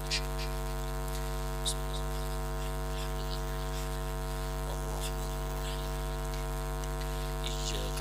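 Steady electrical mains hum from the sound system, with a few faint, brief clicks.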